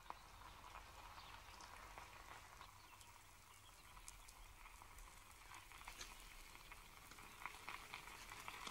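Near silence: faint hiss with a few faint ticks.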